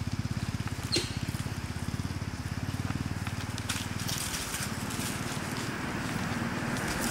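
Dry leaf litter crackling and rustling as monkeys move over it, busiest about four seconds in and again near the end, over a steady low, rapidly pulsing drone.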